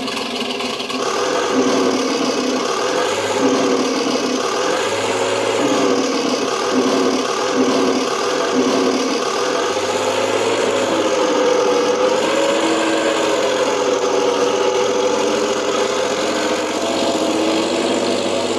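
King Tiger tank engine sound effect from an RC tank sound pack, played through the model's sound board. It runs steadily, its pitch rising and falling several times as if revving off idle.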